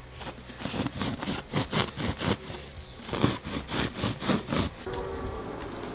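Serrated bread knife sawing back and forth through bare mattress foam in rough, rasping strokes, about three a second. The strokes stop about five seconds in.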